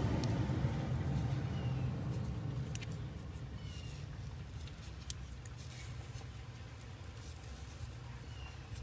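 Low steady rumble, like a distant engine, slowly fading, with a few faint light ticks as a small plastic tire-pressure sensor is turned over in the fingers.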